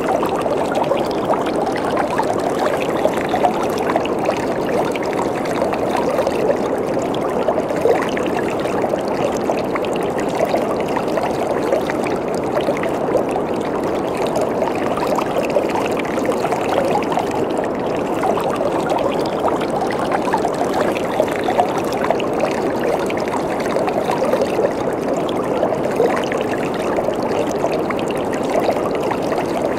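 Waterfall: water falling and splashing onto water in a steady, even rush.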